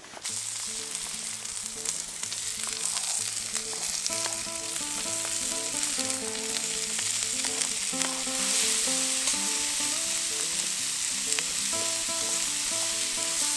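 Chopped vegetables sizzling as they fry in hot oil in a titanium pot over a wood-burning stove. The sizzle grows louder after chopped onions are tipped in around the middle. Quiet background music plays under it.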